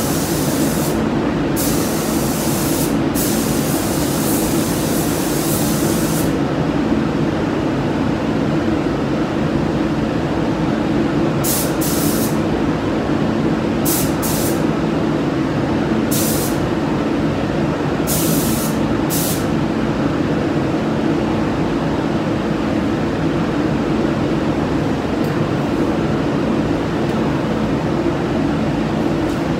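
Paint spray gun hissing in bursts as the first coat goes onto an MGB body: long passes over the first six seconds, then short bursts every couple of seconds, stopping about two-thirds of the way through. Under it the spray booth's ventilation runs with a steady drone.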